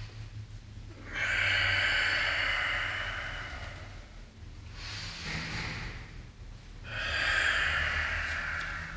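A man breathing audibly and forcefully, timed to the arm lifts and pull-downs of a yoga exercise. There are two long, loud breaths, about a second in and near the end, with a softer one between.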